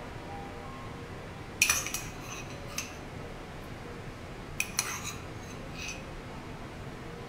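Metal spoon clinking against a ceramic plate as sauce and orange segments are spooned on: a few light clinks about one and a half seconds in and another cluster near five seconds.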